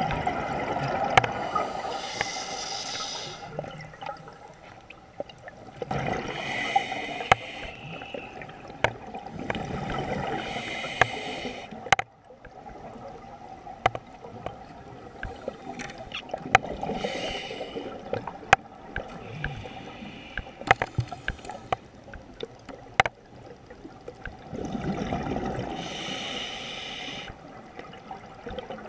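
Scuba diver breathing through a regulator: five hissing inhales through the demand valve, each a second or two long, alternating with longer bubbling, gurgling exhales. Scattered sharp clicks run throughout.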